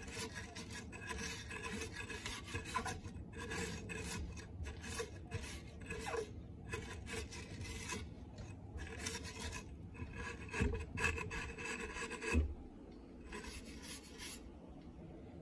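Steel wool scrubbing back and forth along a dirty metal window track, a rapid scratchy rasping made of many short strokes. It stops with a knock about twelve seconds in.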